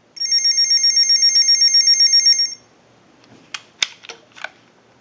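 TS22 lineman's buttset's piezo ringer buzzing with a warbling electronic tone for about two and a half seconds, answering a ring cycle sent down the line: the set is ringing in on an incoming call signal. A few clicks follow as the buttset is picked up.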